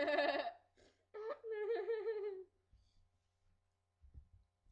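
A girl's high-pitched laughter in two bursts, a short one at the start and a longer, wavering one about a second in; after that it goes quiet apart from a few soft low bumps.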